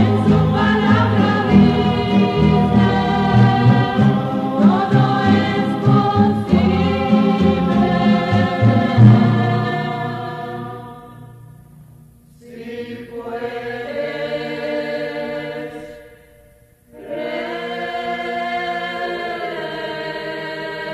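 Rondalla ensemble singing an evangelical hymn in close vocal harmony over string accompaniment. The music fades down about halfway through, returns as held chords, dips almost to silence, then swells back into sustained chords near the end.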